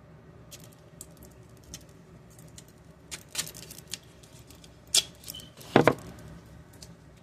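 Handling of a paper calendar and its packaging: irregular rustles and small clicks, with a few sharper knocks and a louder thump near the end.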